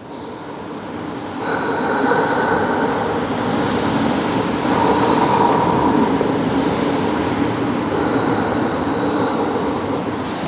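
Steady rush of ocean surf, swelling a little about a second and a half in, with a faint high whistle-like tone coming and going over it.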